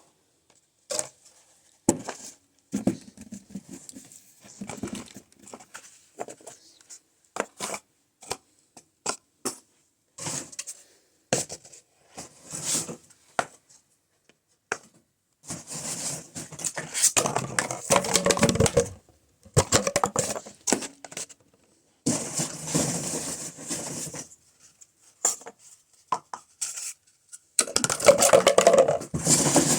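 Cardboard toilet-paper tubes being handled, taken out of a bin and set down: a string of light knocks and taps, then three longer stretches of rustling and rummaging about halfway through and near the end.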